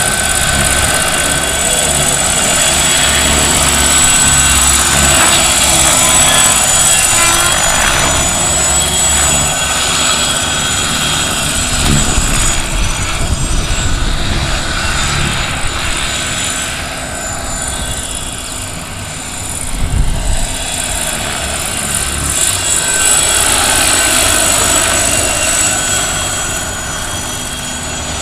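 Scale Lama RC helicopter in flight, its onboard sound module playing a steady turbine whine over the chop of the rotor blades. The sound fades slightly past the middle, with a brief bump soon after, then builds again.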